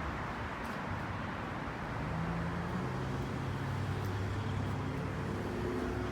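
Steady road traffic noise, with a low steady hum joining about two seconds in.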